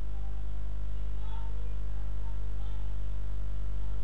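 Steady low electrical hum with a stack of buzzing overtones, unchanging throughout; typical of mains hum picked up in a microphone or audio chain.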